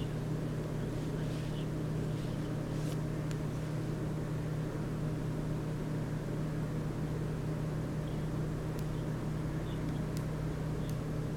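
A steady low machine-like hum with even background noise, and a few faint light clicks about three seconds in and again between nine and eleven seconds in.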